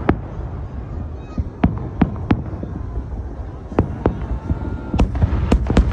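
Holiday fireworks salute going off: irregular sharp bangs over a low rumble, with a quick cluster of bangs near the end.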